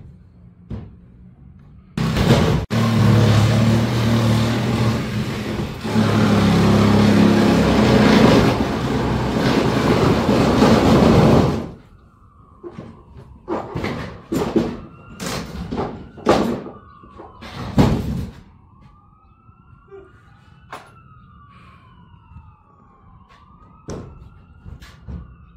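A handheld cordless power tool runs in one long loud stretch of about ten seconds while the old garage door panels are taken apart. It is followed by several sharp knocks as the panels are handled, while a siren wails in the distance, rising and falling.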